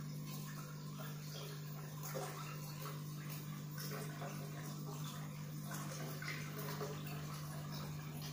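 Submersible aquarium pump humming steadily, with water trickling and splashing in the tank.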